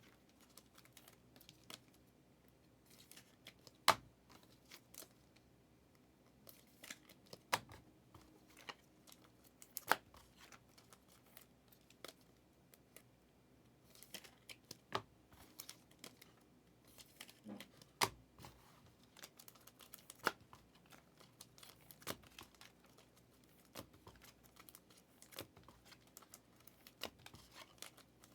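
Foil trading-card pack wrappers being torn open and cards handled, heard as scattered soft tears, crinkles and sharp clicks at irregular intervals.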